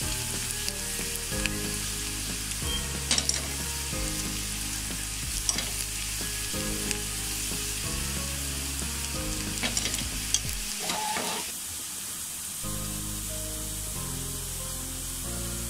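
Sliced onions and dried red chillies frying in hot oil, sizzling steadily, while a silicone spatula stirs them and scrapes or taps the pan a few times; the onions are being fried down to golden-brown crisp onions for a tempering. The sizzle drops a little about three-quarters of the way through.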